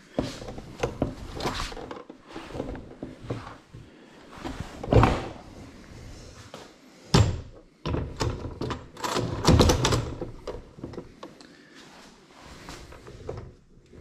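Hollow knocks and clunks of a MotorGuide Xi3 trolling motor's plastic housing and shaft being moved around on its quick-release bow mount, with scraping between them. The loudest knocks come about five seconds in, at about seven seconds, and a cluster a little later.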